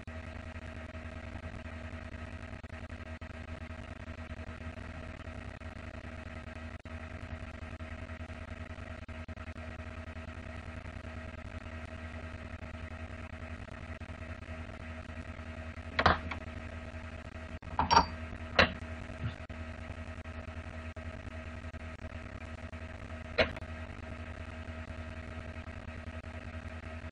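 A steady electrical-sounding hum with several fixed tones, broken by a few short sharp clicks: three close together about two-thirds of the way through and one more a few seconds later.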